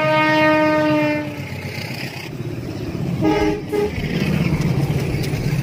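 Diesel locomotive's air horn sounding one long note that ends about a second and a half in, over the low running of the engine and the passing train. A second, short horn toot at a slightly different pitch comes a little after three seconds in.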